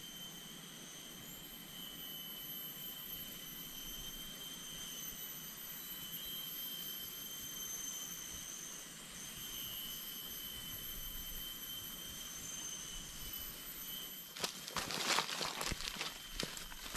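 Steady, high-pitched drone of jungle insects, a few constant whining tones over a hiss. About three-quarters of the way in, crackling and rustling of footsteps pushing through dry leaves and undergrowth joins in.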